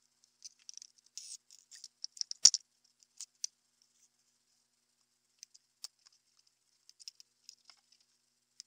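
Scattered light clicks and scrapes of small steel drill bits and parts of a vintage push drill being handled and set down on a stone bench top, with one sharper click about two and a half seconds in.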